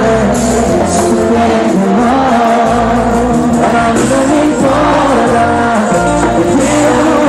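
Live band music at full volume: steady bass notes under a sustained, gliding melody line, in a romantic cumbia show.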